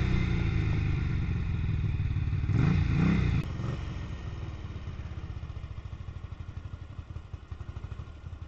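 1978 Ducati 900's bevel-drive V-twin running, with a brief rise in revs about three seconds in; then the throttle closes and the engine drops to an idle of regular, even pulses.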